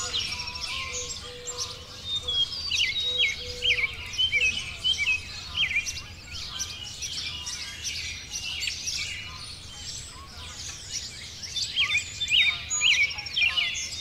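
Spring dawn chorus: many songbirds singing and chirping at once in a dense, overlapping tangle of quick calls and trills. A faint low held note sounds on and off through the first few seconds.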